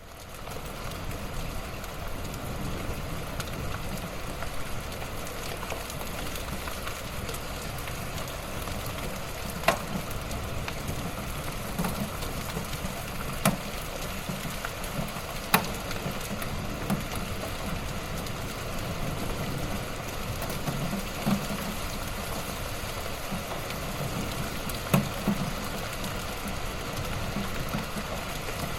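Steady light rain falling, a continuous patter with now and then a single sharper drop tapping.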